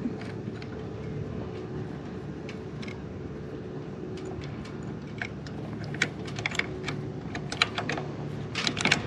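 Irregular light clicks and taps of sailboat rigging hardware being handled at the masthead as the forestay's clevis pin comes free. They grow thicker in the second half, with a quick flurry near the end, over a steady low hum.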